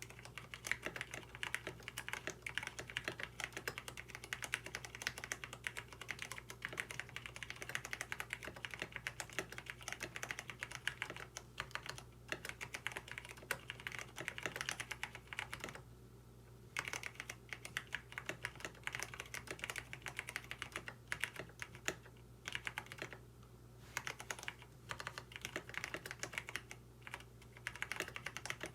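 Continuous fast typing on a KBD67 Lite mechanical keyboard with lubed Cherry MX Brown tactile switches, a dense run of keystroke clicks with a couple of short pauses. The owner finds the switches horribly scratchy, with an annoying "tic" rattle from loose housings that have no switch films.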